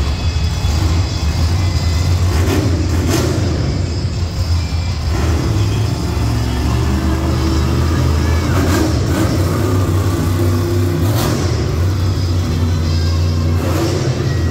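Monster truck's supercharged V8 engine running loud, a heavy low rumble with a few brief sharper noises through it.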